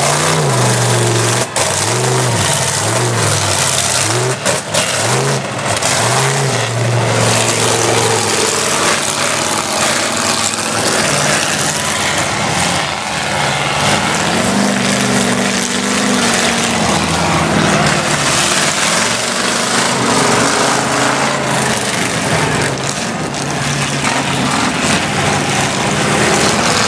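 Lifted mud-bog trucks' engines revving hard through a mud pit. The engine note rises and falls several times in the first seconds, then gives way to a steady loud rush of engine noise.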